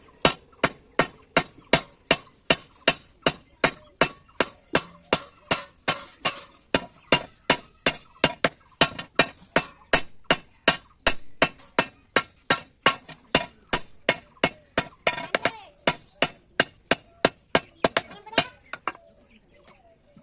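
Steady hammer blows on steel at a blacksmith's anvil, about two strikes a second, forging a 16 mm die, until the hammering stops near the end.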